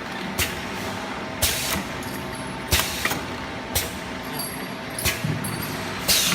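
Automatic perfume bottle filling and crimping machine running with a steady hum, with short hisses of air, typical of pneumatic cylinders exhausting, about once a second.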